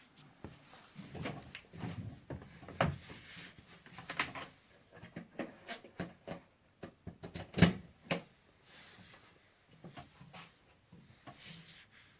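Hard plastic battery pack and charger being handled and fitted together for charging: irregular clicks, knocks and rubbing, with one sharper knock a little past halfway.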